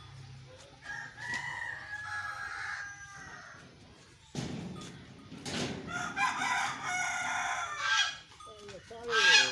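Farmyard fowl calling: one long drawn-out call about a second in, then a louder one from about five and a half seconds in, with a loud brief sound just before the end.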